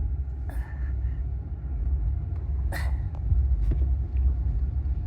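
Steady low road rumble inside a small Geome electric car driven over a rough, potholed road, with a few brief knocks and rattles as the suspension takes the bumps.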